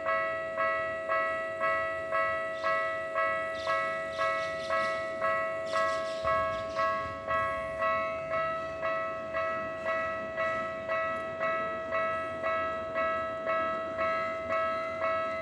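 Japanese railway level-crossing alarm bell ringing in a fast, even rhythm, about one and a half to two strikes a second, each strike decaying. Between about three and seven seconds in, a rushing rail noise rises and fades under the bell as a train goes through the crossing.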